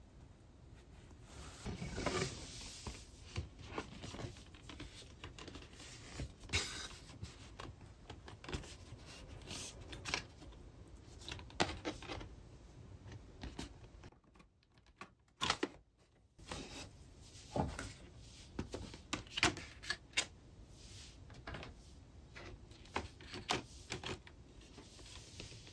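A wooden picture frame and fabric being handled: scattered clicks and taps from the frame's metal backing clips and backing board, with cloth rustling, and a brief hush a little past halfway.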